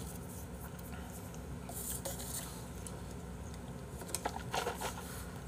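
Faint handling of a plastic cup and sips through its straw, with a short cluster of small clicks and slurping noises about four seconds in.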